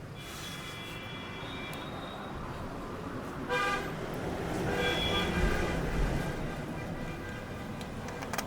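Two short vehicle horn toots, about a second and a half apart, over a steady background of traffic noise.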